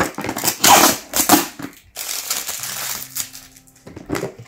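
A clear plastic storage box and the plastic packets inside it are being handled, crackling and crinkling in several short bursts over the first second and a half and once more near the end.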